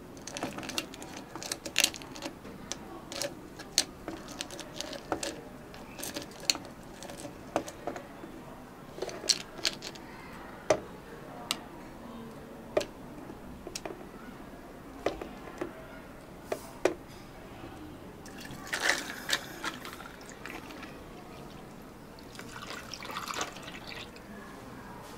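Barista making drinks: frequent sharp clinks and taps of cups and utensils, with liquid being poured in two short bursts near the end.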